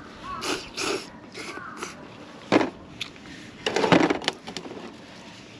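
Man slurping ramen noodles from a metal pot in several short slurps. About two and a half seconds in comes one sharp metal clank as the pot is set down on the camp stove, then a burst of chopsticks clattering inside the pot near four seconds.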